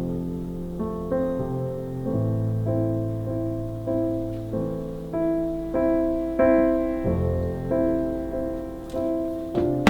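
Background piano music: soft, slow notes and chords, a new note every half second to a second.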